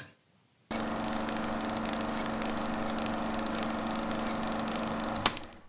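A steady mechanical drone with a low hum, starting under a second in and cutting off with a click near the end.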